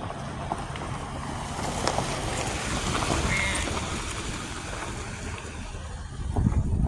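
Wind rushing on the microphone: a steady noise, with a low hum beneath it for the first half.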